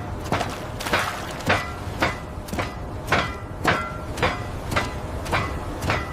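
Evenly repeated metallic clanks, a little under two a second, each ringing briefly, over a steady low rumble.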